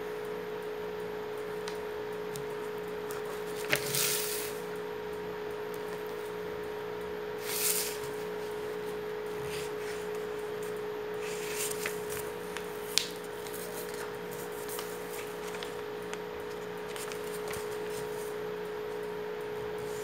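A sheet of paper being folded and creased by hand: two short rustling swishes, about 4 and 8 seconds in, and a few light taps and ticks, over a steady low hum.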